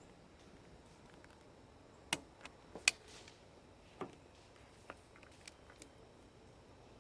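A few sharp, separate clicks and taps over a quiet background, the loudest two coming about two and three seconds in, with a few fainter ones later, as plugs, buttons or controls are handled.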